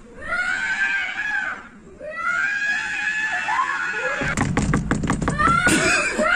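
A person screaming in long, drawn-out, high-pitched cries, two held screams one after the other. About four seconds in, a rapid clatter of knocks breaks in for over a second, with more screaming over it.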